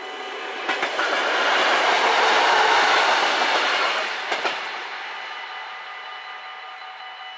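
Electric passenger train passing over a level crossing: its noise builds, peaks two to three seconds in and fades away, with knocks of the wheels over the rail joints as it arrives and again about four seconds in. The crossing's warning bells keep ringing over it and stop near the end.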